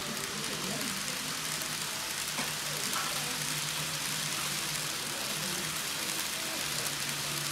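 N-gauge model of a JNR 185 series train running on its track: a steady hissing whir of wheels and motor, with a low hum underneath and a few faint clicks.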